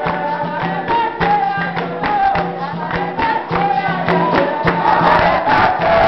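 Capoeira roda music: a group singing in chorus over berimbau and hand percussion, with the jingle of a pandeiro and regular strikes throughout.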